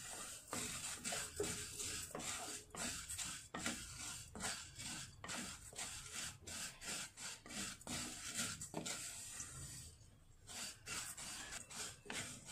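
Wooden spatula scraping and stirring vermicelli around a kadhai as it is dry-roasted in a little ghee until golden: repeated rubbing strokes, one or two a second, with a brief pause about ten seconds in.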